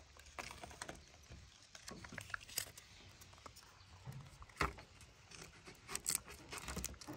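Kinder Joy egg's plastic capsule being handled and worked open: scattered small plastic clicks and taps, with a sharper click about halfway through and another a second and a half later.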